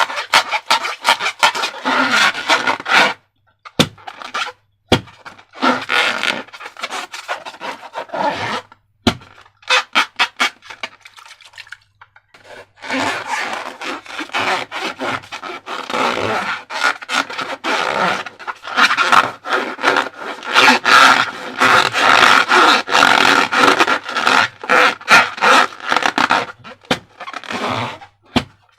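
Slime being squished and worked by hand: dense, wet clicking and crackling, with a few short pauses.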